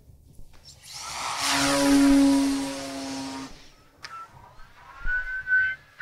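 Explorer BF F5J electric RC glider making a fast low pass: a rush of air with a steady whistling tone swells for about three seconds and then fades.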